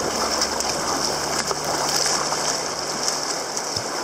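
Choppy sea water rushing and splashing around a sea kayak's hull as it moves through foamy white water.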